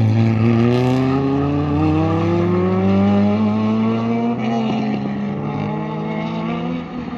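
A 1.6-litre class race car engine accelerating hard, its pitch climbing steadily for about four seconds. The note briefly breaks about four and a half seconds in, then holds steadier and slowly fades as the car pulls away.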